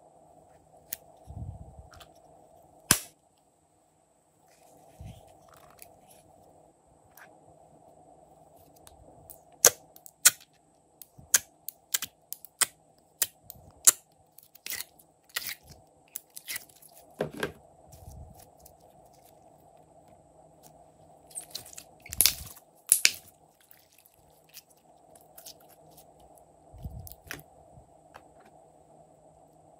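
Sharp clicks and taps of small plastic and velvet cases being handled and opened, scattered irregularly and bunched around the middle and about three-quarters of the way through. A faint steady hum runs underneath.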